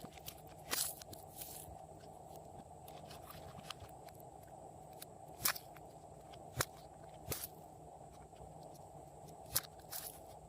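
Store-bought slime being worked by hand, giving scattered sharp clicking pops, about seven in all, over a faint steady background hiss.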